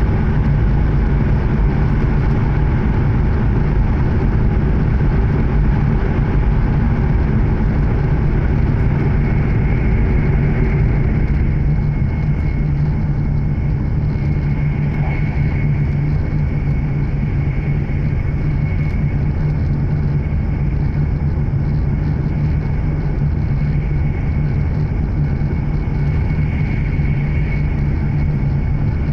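Cabin noise of an E7 series Shinkansen running at speed: a steady low rumble, with a faint high whine that comes in about a third of the way through.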